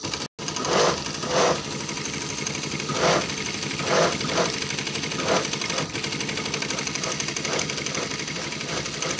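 Industrial single-needle lockstitch sewing machine running at speed and stitching through fabric, a rapid, even needle clatter with a few brief louder swells. The sound cuts out for a moment just after the start.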